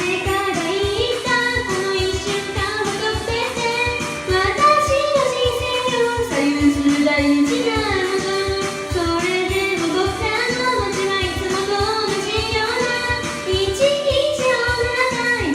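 A woman singing a Japanese pop ballad over a karaoke backing track with a steady drum beat, sung five semitones above the original key.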